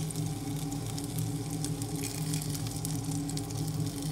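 Chicken pieces sizzling and crackling as they fry in a nonstick pan, with a steady low hum underneath.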